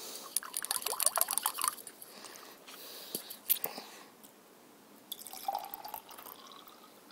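Blue drink-mix liquid sloshing in a glass as it is stirred up, with a quick run of light clinks and splashes over the first couple of seconds. Near the end it is poured in a short stream into the clear plastic tube of a toy slime-drink maker.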